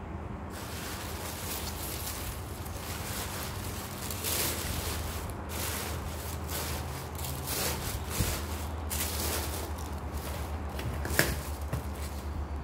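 Black tissue paper crinkling and rustling as it is stuffed into a cardboard box, with a sharp tap near the end as the box lid is pressed on.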